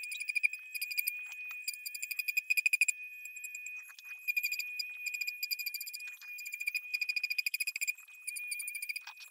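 Dremel 4000 rotary tool running at high speed while sanding EVA foam: a steady high whine with a rapid rasping chatter that comes and goes as the bit bites into the foam.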